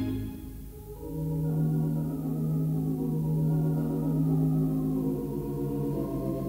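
A Wurlitzer theatre pipe organ with four manuals and fourteen ranks, playing a slow tune. A full chord dies away at the start, and about a second in a softer passage of held notes comes in over a long sustained low note.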